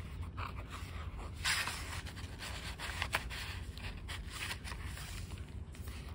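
Paper pages and cards of a handmade junk journal rustling and scraping as they are handled and turned. There is a louder rustle about a second and a half in and a sharp flick about three seconds in, over a low steady hum.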